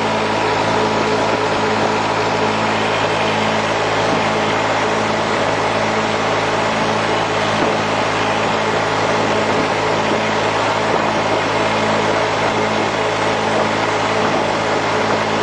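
Massey Ferguson 35 tractor engine running steadily under way on the road, heard close from the driver's seat, with a steady hiss over it.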